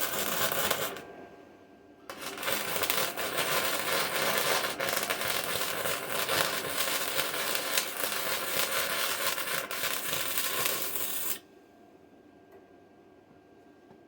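Electric arc welding on a ripped bucket seam, the arc crackling steadily. It breaks off about a second in, strikes again a second later, runs about nine seconds and then stops suddenly.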